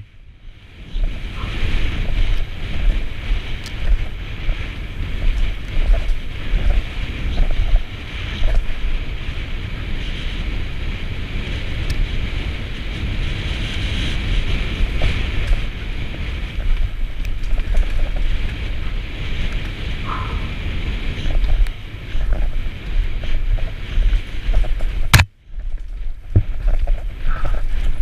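Wind buffeting a helmet camera's microphone during a fast downhill mountain-bike descent, with the rumble and rattle of the bike's tyres and frame over dirt and rocks. The sound cuts out briefly just after the start and again near the end, with a sharp click at the second cut.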